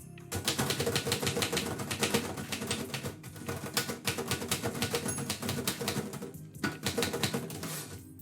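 Typewriter keys clacking in quick runs of strikes, with a brief pause about three seconds in and another past six seconds.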